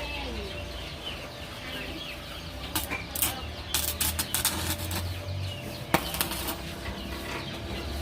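Chickens clucking, with clusters of sharp knocks and taps about three to four and a half seconds in and one louder knock about six seconds in.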